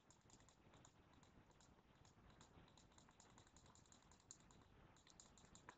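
Faint, irregular clicking of a computer mouse, several clicks a second, as an eraser brush is dabbed over an image in an editor.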